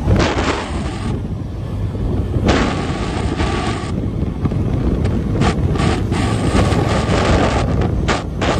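Wind buffeting the microphone in gusts as the vehicle moves, over a steady low rumble of engine and road.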